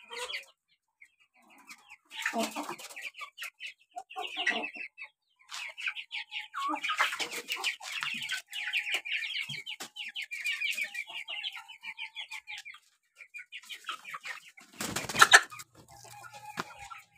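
A flock of young Aseel chicks peeping and clucking in a rapid, busy chatter, loudest in the middle. A brief loud rustling noise breaks in about fifteen seconds in.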